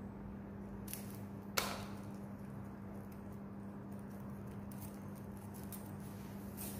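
Faint handling and rustling of a coiled fibre optic patch cord being worked loose by hand, with one sharp click about a second and a half in, over a steady low hum.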